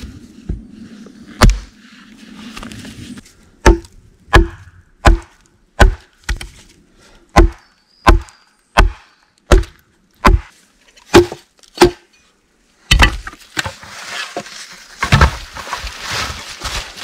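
Wood being chopped: about a dozen even blows, one every 0.7 seconds or so, each with a short ring after it. A single blow comes earlier, and the chopping gives way near the end to a few seconds of rustling and cracking of branches.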